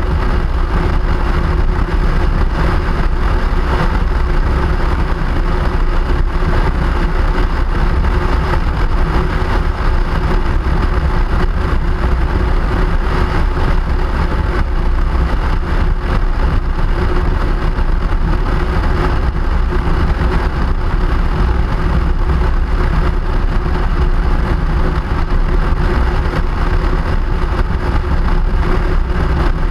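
Steady travel noise from a vehicle on the move: a loud, deep, even rumble and rush that holds the same level throughout, with no distinct events.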